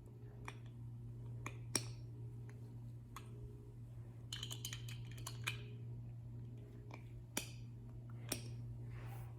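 Plastic Duplo bricks and toy pieces clicking and knocking against each other in scattered, irregular clicks, with a quick flurry of clicks about four to five seconds in.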